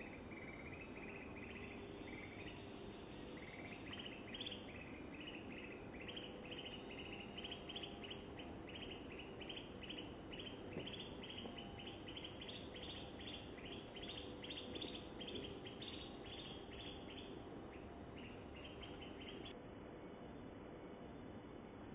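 An insect chirping in short high pulses, about two or three a second, stopping near the end.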